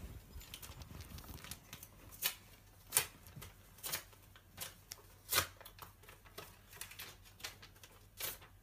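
A sheet of paper rustling and crackling as a letter is opened and unfolded by hand, in short, irregular crackles with quiet gaps between them.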